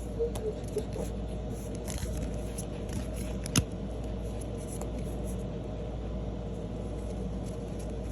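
Faint handling of Pokémon trading cards, light rustles and clicks over a steady low hum, with one sharper click about three and a half seconds in.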